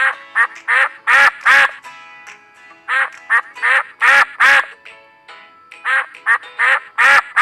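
Duck quacking in three quick runs of four or five loud quacks each, over light background music.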